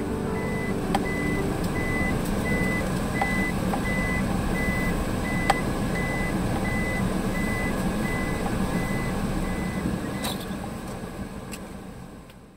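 A car's reverse-gear warning beeper in the cabin, sounding about twice a second at a steady pitch over the low, steady noise of the running car. The beeping, which signals that the car is in reverse, stops about ten seconds in.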